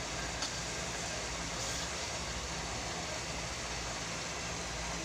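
Grated santol in coconut milk frying in a pan, a steady sizzling hiss as the coconut milk cooks down and releases its oil, with two faint clicks early on.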